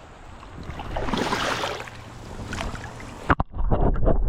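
River water rushing and splashing, swelling about a second in. Near the end a sharp knock is followed by a low rumble.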